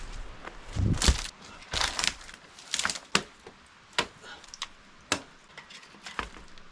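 Wet firewood being chopped: a series of sharp, irregular blows into a rain-soaked log, roughly one a second, with cracking and splintering wood.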